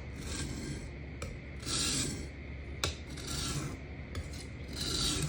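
Steel kitchen-knife edge stroked across an Atoma diamond sharpening plate: four slow rasping strokes about a second and a half apart, with a sharp tick a little before halfway, working at a stubborn burr along the edge.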